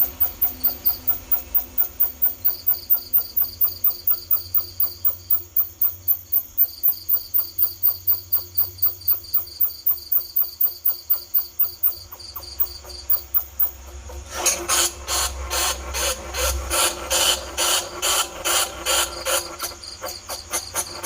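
Bandicoot rat squeaks used as a rat-lure call: sharp high-pitched squeaks repeating about three times a second, changing some 14 seconds in to a denser, harsher run of squeaking.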